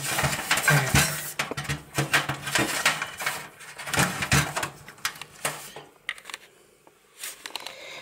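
Hands working inside a PC case while plugging in a SATA cable: a run of sharp plastic clicks and knocks with cable rustling, easing off about six seconds in.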